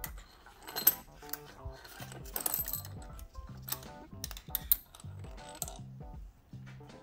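Small metal clicks and clinks as loosened cylinder-head bolts and washers are fished out of the head's bolt holes with a long thin pickup rod, over background music.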